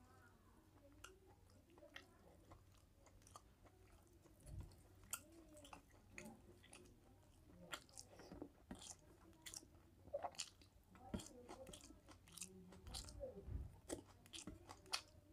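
Quiet close-up eating sounds: a man chewing mouthfuls of rice and mutton curry, with many small, sharp wet clicks and smacks of the mouth and fingers.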